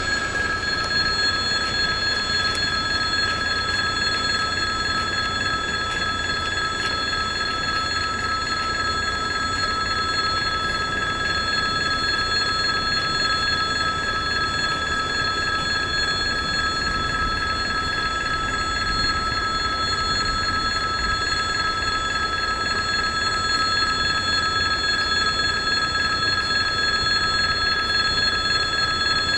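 Railway level-crossing warning bell ringing continuously and steadily, a high unbroken ringing, with a low rumble underneath.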